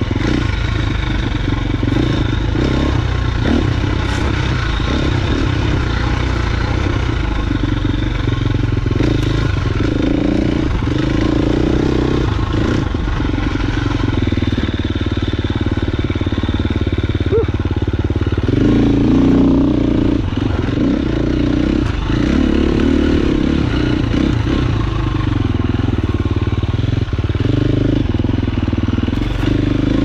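KTM 350 XC-F four-stroke single-cylinder dirt bike engine running as the bike is ridden along trail, its revs rising and falling with the throttle. The clatter and knocks of the bike over rough ground run through it.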